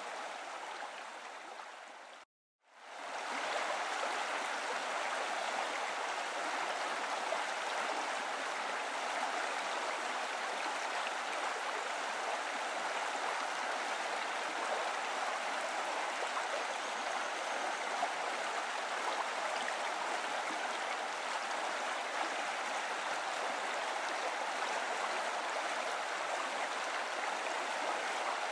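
Steady rushing of running water, like a stream. It fades down, breaks off for a moment about two and a half seconds in, then fades back up and runs on evenly.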